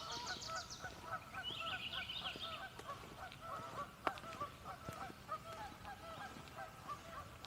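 Canada geese honking over and over, several short honks a second. A songbird's trill sounds above them in the first two seconds, and there is a single sharp click about four seconds in.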